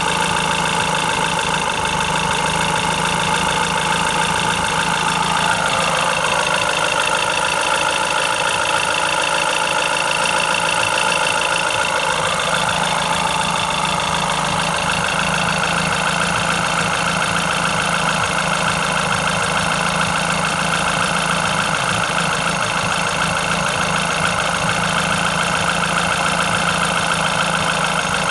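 Renault Clio 2 RS's four-cylinder engine idling steadily, with a slight shift in its higher tones a few seconds in and again about halfway through.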